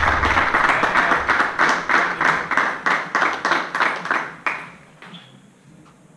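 Small crowd of spectators applauding at the end of a table tennis rally, the clapping dying away about four and a half seconds in.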